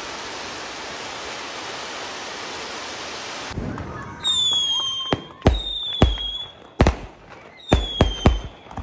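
Fireworks: fountain fireworks hiss steadily for about three and a half seconds. Then aerial fireworks take over, with several whistles falling in pitch and a run of sharp bangs.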